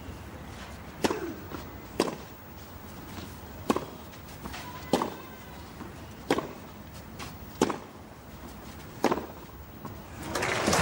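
Tennis rally on a clay court: a ball struck back and forth by rackets, seven sharp pocks roughly every second and a third. Crowd applause swells up near the end as the point finishes.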